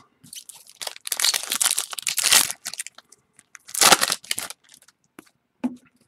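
Trading-card pack wrapper being crinkled and crushed in two long stretches, about a second in and again near four seconds, with light clicks and rustles of cards being handled in between.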